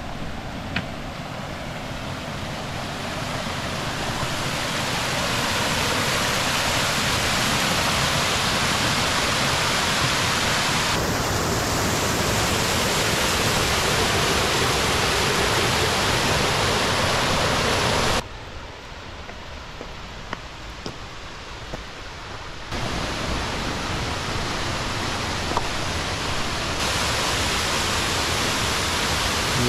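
Waterfall pouring over rock into a gorge: a steady rush of water that grows louder over the first few seconds. About 18 seconds in it drops suddenly to the quieter rush of a shallow creek running over stones, then rises again about five seconds later.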